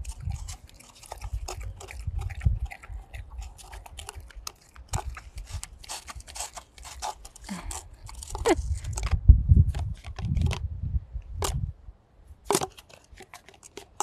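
A Shepherd-Boxer mix dog crunching and chewing dog biscuits and licking whipped cream out of a paper cup: a run of wet crunches and clicks, heaviest in the middle.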